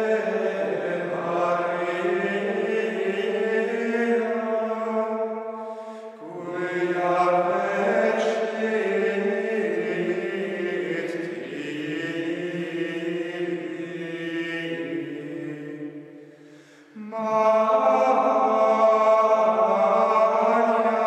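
Carthusian monks' choir chanting plainchant, men's voices singing long sustained phrases. There is a short break about six seconds in and a pause near sixteen seconds, and the singing comes back louder about a second later.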